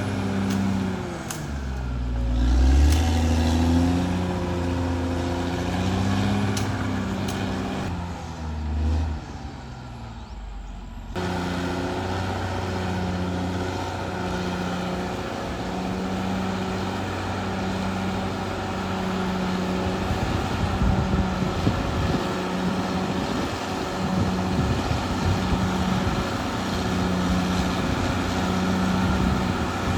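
Caterpillar D6R XL bulldozer's diesel engine working under load. Its pitch sags about two seconds in and recovers, the sound changes abruptly about eleven seconds in, and from about twenty seconds in it runs steadily with added rough rattling.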